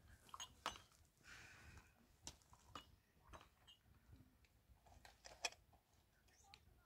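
Near silence with a few faint, scattered clicks and light knocks, one sharper click about three quarters of the way through.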